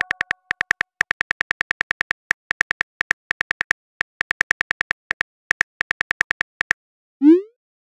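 iPhone-style keyboard click sounds tapping rapidly, several a second with short pauses, as a text message is typed. Near the end comes a short rising whoosh: the message-sent sound.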